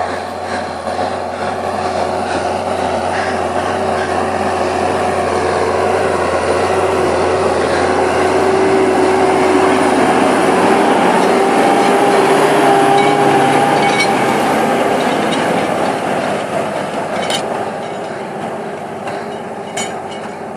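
Deutz-Fahr Agrotron 150 tractor's diesel engine working under load while ploughing, with a steady whine over the engine note. It grows louder toward the middle, then fades away.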